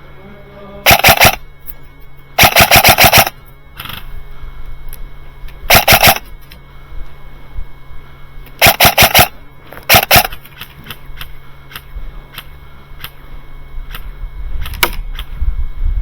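Airsoft gun firing five short, rapid bursts of shots, each a quick string of sharp cracks. The bursts are loud against the quiet background.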